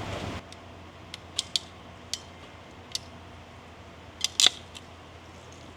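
A handful of sharp, separate clicks and snaps from a hand crimping tool closing on wire terminals, spaced irregularly, the loudest a quick double snap about four and a half seconds in.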